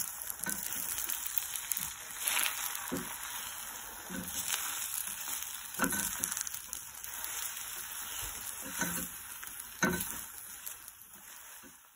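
Beaten eggs sizzling steadily in butter and olive oil over low heat, while a silicone spatula pushes them around the frying pan with occasional short scrapes and taps. The sizzle fades near the end.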